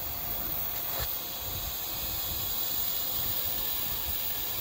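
Steady hiss of compressed air bleeding from a Fisher 4160 pneumatic pressure controller, with a faint click about a second in.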